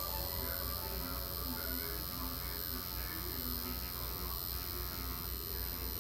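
Electric tattoo machine buzzing steadily while lining.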